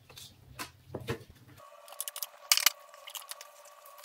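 Light metallic clicks and clinks from a bench vise being slowly tightened on a bolted 3D-printed mold. About a second and a half in, the background changes to a faint steady hum with scattered ticks.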